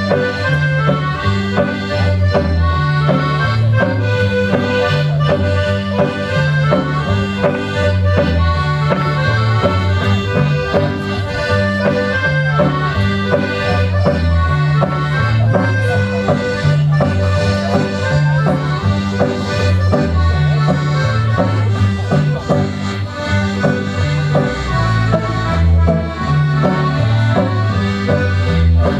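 Accordion-led folk dance music playing continuously, with held melody notes over a steady, regularly alternating bass line.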